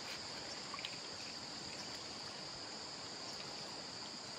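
Steady rush of a mountain stream, with a continuous high-pitched insect drone over it.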